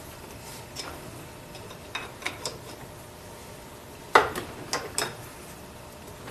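Metal-on-metal clinks of a spanner wrench on the carrier bearing adjusters of a Ford 9-inch differential as the adjusters are turned. A few light clicks come first, then three louder clanks a little after four seconds in, the first of them the loudest.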